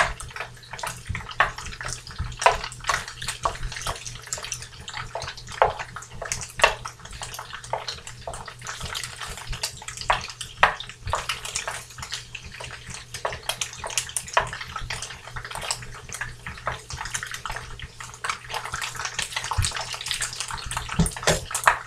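Crumbled tofu frying in butter in a pan, a steady sizzle with crackling and spitting grease, and a wooden spoon scraping and tapping the pan as it is stirred and broken up.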